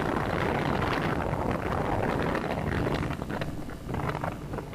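Speedboat running at speed across open water: the motor's drone mixed with rushing water and wind buffeting the microphone, easing a little over the last second or so.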